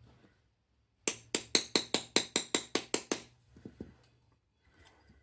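Small hammer rapping a pin punch about eleven times in quick succession, roughly five blows a second, followed by a couple of lighter taps. It is driving a trigger-unit retaining pin out of a Weihrauch HW97K air rifle.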